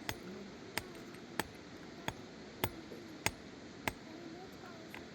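Hammer tapping at a steady pace, a sharp ringing strike about every 0.6 seconds.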